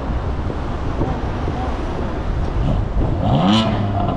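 Street traffic: a steady rumble of cars driving past, then about three seconds in an engine accelerating, its pitch rising.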